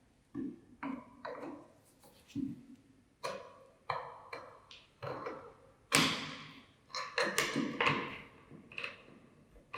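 Metal parts of an antique hand-cranked grinder knocking and clinking as they are handled: about a dozen irregular ringing knocks, the loudest about six seconds in.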